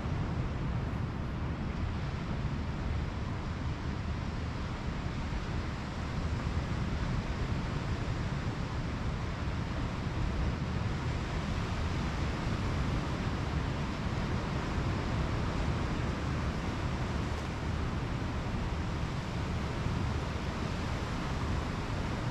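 Pacific Ocean surf breaking and washing up on the beach in a steady rush, with wind buffeting the microphone.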